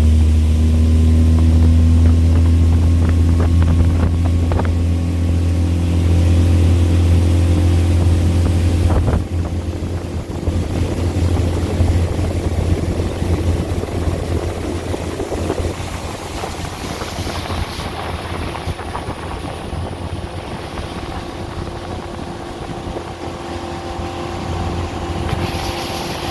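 A 20 hp Tohatsu outboard motor running steadily on a small boat under way. About nine seconds in, the sound drops in level and turns into more of a rushing noise, with the motor's hum still under it.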